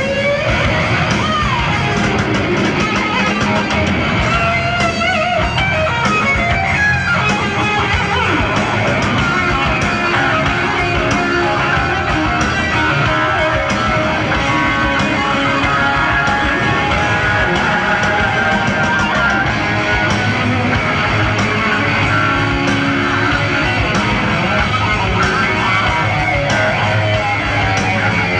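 Heavy metal band playing live: an electric guitar solo with bent, wavering notes over bass and drums, heard on an audience bootleg recording.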